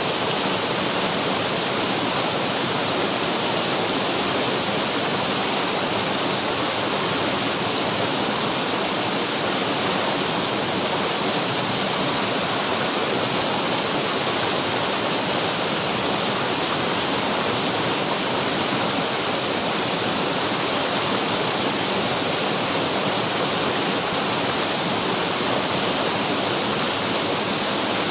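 Mountain stream running over rocks in shallow rapids: a steady, unbroken rush of water.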